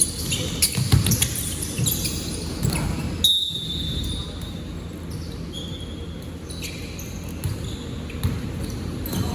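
Basketball game play in a gym: a ball bouncing on the court with repeated knocks, brief high shoe squeaks a few times, and voices in the echoing hall.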